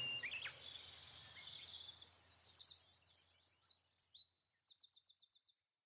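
Faint songbirds chirping: scattered short high chirps and whistles, then a rapid trill of repeated notes near the end, fading out just before the end.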